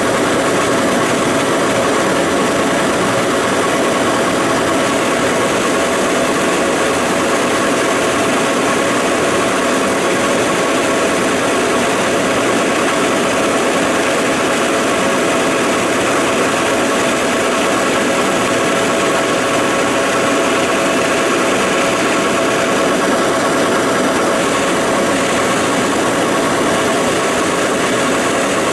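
Large Monarch engine lathe running steadily with its chuck spinning, a constant loud machine drone with a few steady tones and a faint high whine.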